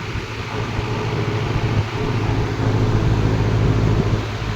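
1950s Kenmore automatic box fan with a GE motor running steadily on high speed: a strong rush of air over a low motor hum.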